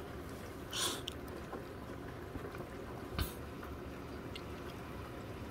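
Steady rainfall, an even hiss of rain. A brief louder burst of noise comes just under a second in and a single sharp tap a little after three seconds.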